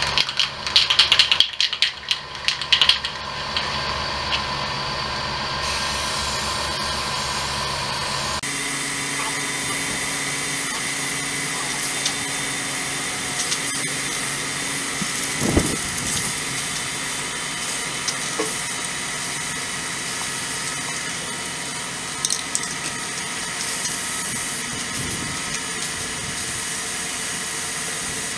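Aerosol spray paint can (Rust-Oleum enamel): first shaken, its mixing ball rattling in quick clicks for a few seconds, then a long, steady hiss of paint spraying onto a lawn tractor's hood.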